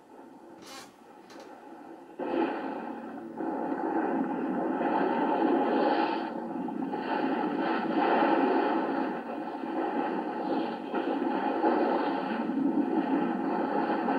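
Rushing noise of wind and sea aboard a sailing ship under way, swelling and easing; it comes up sharply about two seconds in, after a quieter start with two faint clicks.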